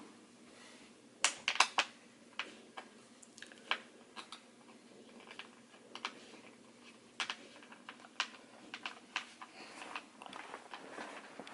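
Irregular sharp clicks and light knocks of gaming-chair parts being handled and fitted together, loudest in a quick cluster of clicks about a second in.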